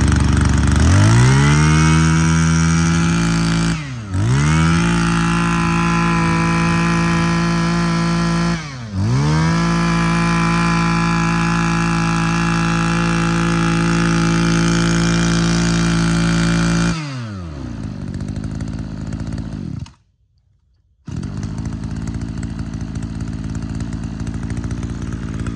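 Mitsubishi TL23 23cc two-stroke brush cutter engine running. It is revved up to high speed about a second in, throttled off and back up twice, and drops back to a low idle after about 17 seconds. After a one-second break, a steadier, rougher low running sound follows.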